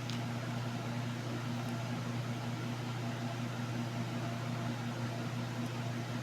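Steady low mechanical hum with a fainter tone above it and a light hiss, unchanging throughout: the constant background drone of a running appliance or fan.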